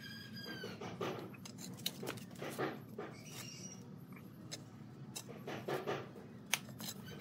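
Small steel trowel scraping and tapping wet cement mortar onto a cement stove rim, a series of short scrapes and clicks. A short high-pitched animal call sounds right at the start, and a brief high call about three seconds in.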